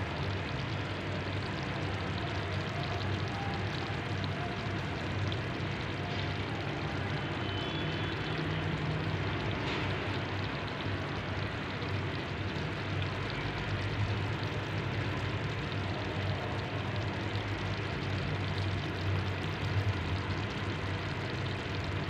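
Potato chunks and tomatoes cooking in a pot, making a steady sizzling hiss over a low hum.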